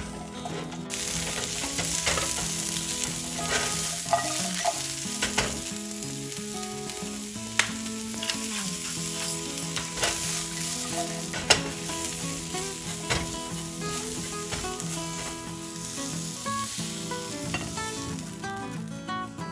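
Asparagus sizzling as it sautés in a nonstick frying pan over medium heat, stirred and turned with a silicone spatula. There are a few sharp knocks against the pan. The sizzle starts about a second in.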